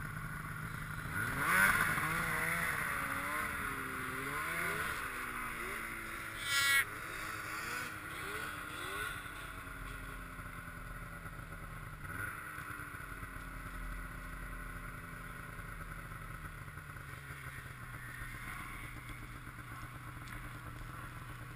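Snowmobile engine idling steadily, while a snowmobile engine revs up and down again and again through the first dozen seconds or so. There is a brief sharp sound about seven seconds in.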